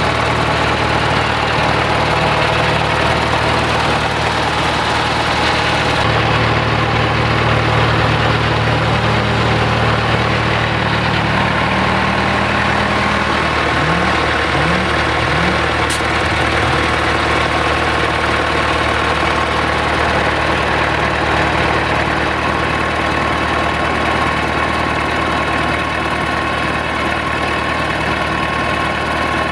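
UTB U651M tractor's four-cylinder diesel engine idling steadily, close up at the engine bay.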